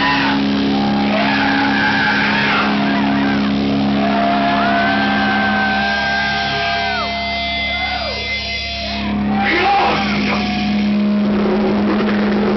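Heavy metal band playing live: distorted guitar and bass holding a low note, with a singer's high sustained vocal wails over it.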